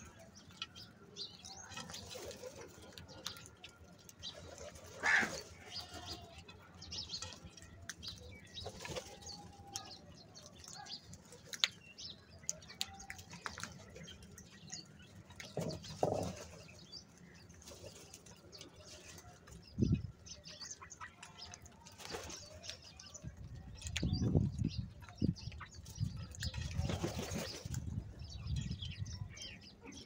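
A flock of house crows feeding on grain: bursts of wing flapping as they jostle, sharp pecking clicks and a few short calls, coming every few seconds, busiest near the end.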